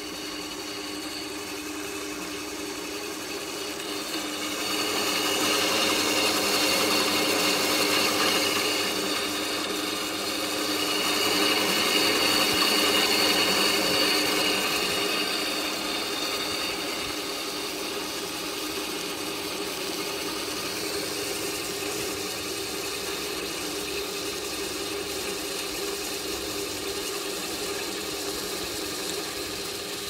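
BOKY benchtop drill press running with its twist bit cutting into a steel plate. A steady whine with a high cutting squeal that swells twice, about five and eleven seconds in, as the bit is fed down harder.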